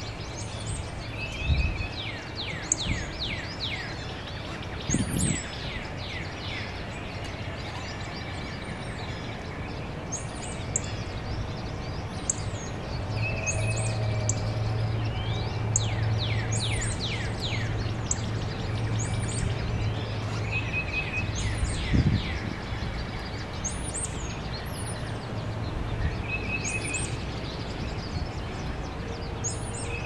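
Several wild songbirds singing and calling: high thin notes repeat every second or two, with two runs of quick downslurred whistles and a few short trills. A low steady hum sits underneath and is louder in the middle.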